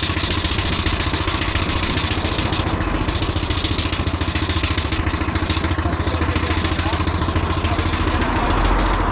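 Miniature steam traction engine running on the road, its exhaust and motion giving a fast, even beat over the rumble of the wheels.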